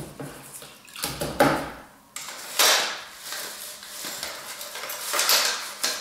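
A cleaning brush scrubbing inside a clear plastic tube bird feeder. The bristles rasp against the plastic and the brush knocks against the tube in uneven bouts, loosening caked muck from the bottom.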